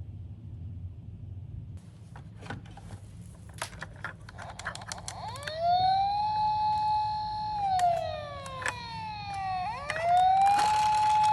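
Electronic siren of a toy mini car: a wailing tone that rises, holds steady for about two seconds, falls slowly and rises again to hold once more. Before it, for a few seconds, there are light plastic clicks and taps.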